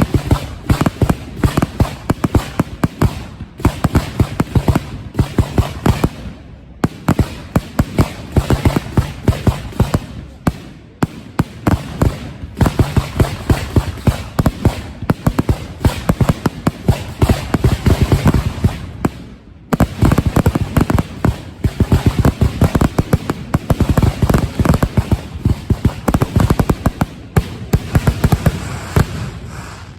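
Fireworks finale barrage: a dense, rapid stream of launch shots and bursts going off many times a second, with two short lulls, about a quarter of the way in and about two-thirds of the way in.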